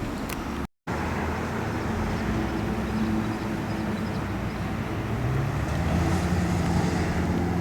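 Car running with engine hum and road noise; the engine note rises about five seconds in as it picks up speed. The sound cuts out for an instant just under a second in.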